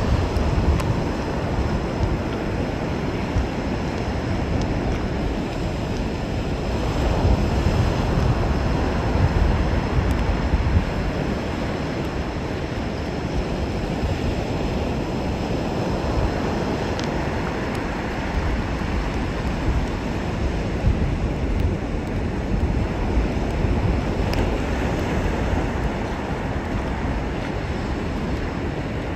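Wind buffeting the microphone over the steady wash of ocean surf on an open sandy beach, a rough low rumble with no pauses.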